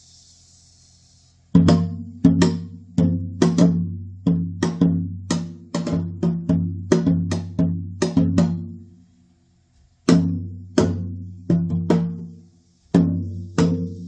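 Janggu, the Korean hourglass drum, struck in a quick, uneven rhythm of sharp beats, each with a deep ringing tone. The playing starts about a second and a half in and pauses briefly twice, near nine seconds and near twelve and a half.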